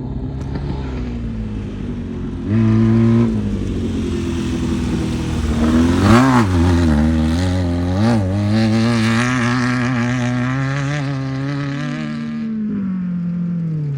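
Off-road race vehicle's engine revving hard, its pitch jumping up and down with the throttle, loudest about six seconds in. The pitch then slides down near the end as the vehicle passes by.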